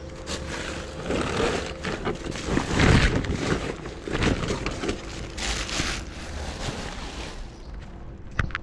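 Black plastic garbage bags rustling and crinkling as they are lifted and handled, in irregular bursts, with a heavier bump about three seconds in.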